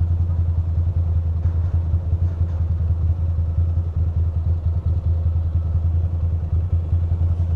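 A 2006 Ducati Monster 620's air-cooled L-twin idles steadily with an even, rapid low pulse and does not stall. It is running on a newly fitted camshaft position sensor, which the owner hopes has cured its habit of shutting off.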